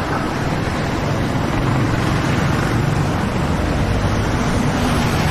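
Steady rushing roar of street traffic, with a low engine hum underneath that grows a little louder about two seconds in.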